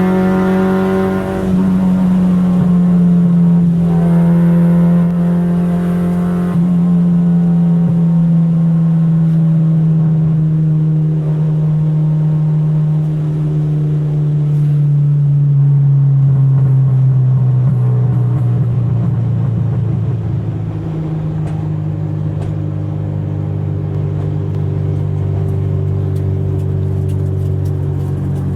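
Car engine running hard at high revs with two brief breaks early on, then its pitch sinking slowly as the car eases off, and settling into a steady lower drone.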